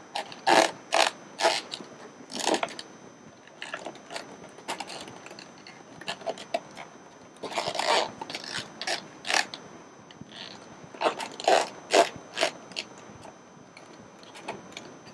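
Plastic welt cord lip being stuffed into the channel of a plastic console frame with a blunt stuffing tool: irregular short scrapes and clicks of plastic on plastic, coming in clusters.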